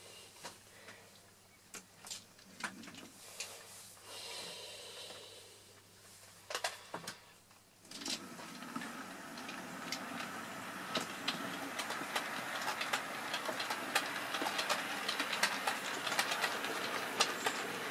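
Hornby Q6 model steam locomotive and its wagons running on OO-gauge model railway track. At first there are only a few scattered clicks. From about eight seconds in comes a steady rolling rumble of the moving train, with rapid clicks of the wheels over rail joints and points.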